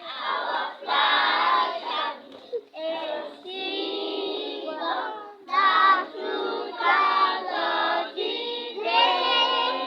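A group of young schoolchildren singing together in unison, in sung phrases broken by short pauses for breath.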